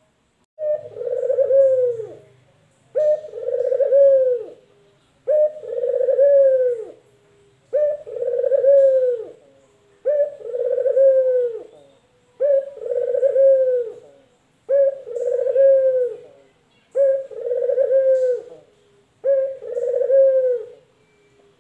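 A caged male puter (collared dove) cooing. Nine long coos follow one another evenly, a little over two seconds apart, each ending in a falling note.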